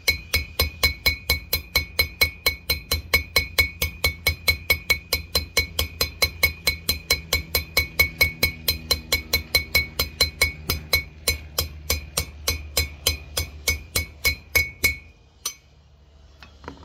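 Steel hammer tapping a new tapered-roller bearing race into the bore of a brake rotor hub, about three even blows a second, each with a metallic ring. The blows stop about 15 seconds in.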